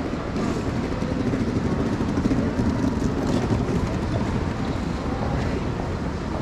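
Steady low rumble of a busy shopping street, with faint indistinct voices in the background.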